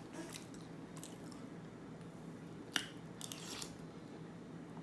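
A person eating close to the microphone: soft chewing and mouth sounds, with one sharp click a little past the middle.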